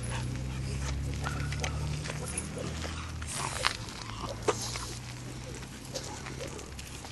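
A dog's low growl, held steadily and fading in the second half, with two sharp clicks near the middle.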